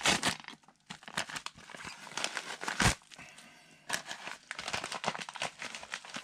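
Paper and plastic packaging crinkling and tearing as a mailed coin parcel is unwrapped by hand, with one sharp knock about three seconds in.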